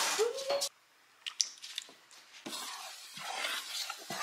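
Eggs cooking in a frying pan: a soft sizzle over the second half, with a few light knocks of a utensil against the pan and a couple of sharp clicks before it.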